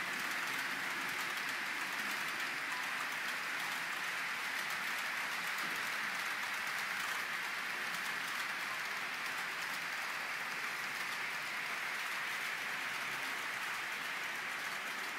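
Model freight train running along a layout's track: a steady rolling noise of its wheels on the rails.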